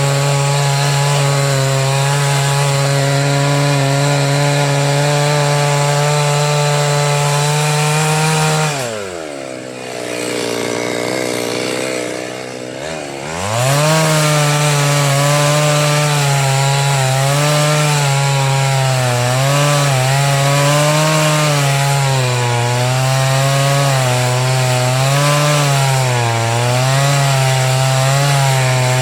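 Two-stroke chainsaw running at high revs, then throttled back about eight seconds in so its pitch falls away to a low idle. A few seconds later it revs back up, and the speed wavers up and down as it works through wood.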